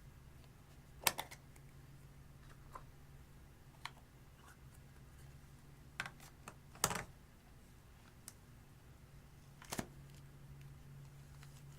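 Scattered sharp clicks and small pops from hands working clear slime and makeup, about ten spread irregularly, over a faint steady hum.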